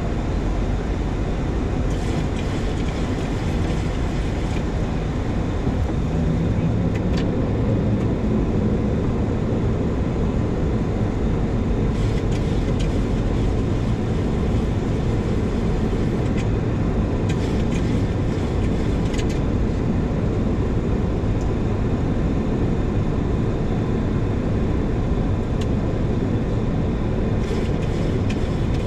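Steady rushing of airflow and engine noise inside a Boeing 737-800's flight deck on approach to land, with a faint steady hum and a few faint clicks.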